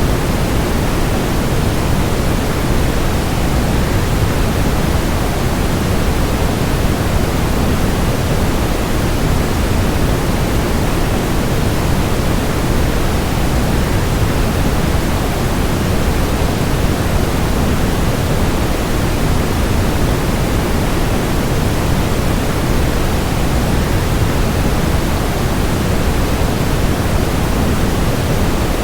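Waterfall rushing in one steady, unbroken wash of noise, heaviest in the low end.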